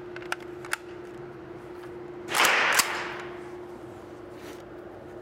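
Sig SG rifle being handled before firing: a few light clicks, then a loud half-second scraping rush that ends in a sharp clack, with a steady hum underneath.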